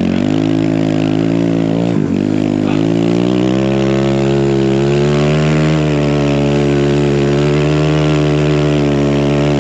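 Big-bore Kawasaki KLX140 dirt bike (170 cc kit, BBR D3 exhaust), its single-cylinder four-stroke engine pulling under throttle up a hill climb in deep snow. About two seconds in the engine note dips briefly, then rises a little and holds steady.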